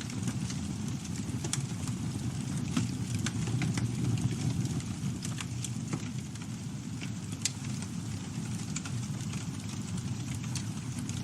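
Campfire burning: a steady low rumble of flames with frequent irregular crackles and pops from the burning wood.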